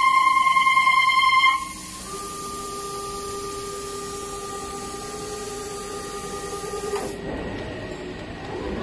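CNC tufting and bartacking machine's motors whining steadily as the head moves into position over the cushion. The whine drops in level and pitch about 1.5 s in, holds steady, then stops about two seconds before the end and gives way to a softer hiss.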